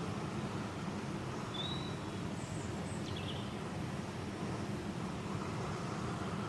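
Portable gas camping stove burner running with a steady rushing hiss, heating a pot of water toward the boil. A small bird chirps a few high notes about two to three seconds in.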